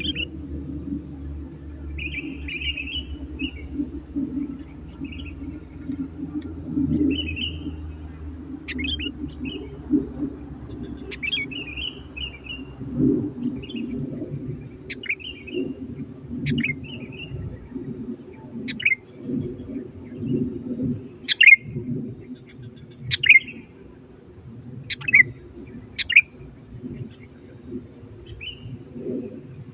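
Sooty-headed bulbul (kutilang) calling: loud, clear short chirps, many with a quick downward sweep, repeated about every two seconds, over a low steady background rumble.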